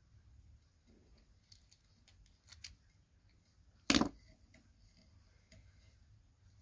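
Parts being handled during work on a torsion bar: a few faint clicks, then one sharp knock about four seconds in.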